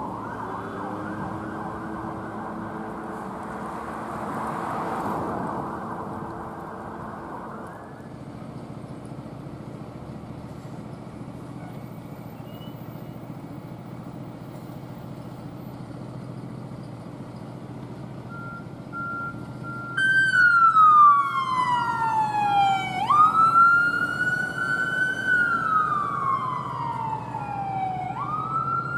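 Emergency vehicle siren on wail, a slow rise and fall about every five seconds, starting loud about two-thirds of the way in, with a steady pulsed tone alongside. Before it, engine and road rumble, with a siren briefly winding up about eight seconds in.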